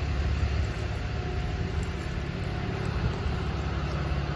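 Cummins straight-six diesel engine of a Ram 5500 tow truck idling steadily, a low even rumble.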